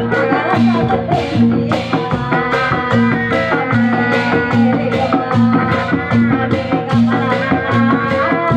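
Live Sundanese bangreng music played loud, with a steady, driving percussion beat of about three strokes a second under sustained melodic tones.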